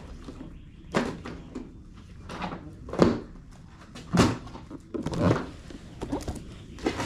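Handling noise: a series of separate knocks and thunks, about six, as a cardboard box is handled and set down on a concrete floor.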